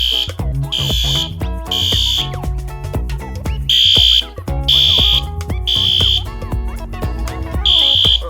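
System Sensor SpectrAlert Advanced P2R horn strobe sounding in the Code 3 (temporal-3) pattern, the standard fire evacuation signal: three short, shrill horn blasts, a pause, then three more, and a third group beginning near the end.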